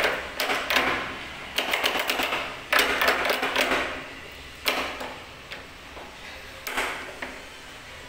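Rapid metallic clicking and rattling of a surface-mounted rim lock's mechanism as its knob is turned back and forth by hand. It comes in three or four dense bursts, then a few single clicks near the end.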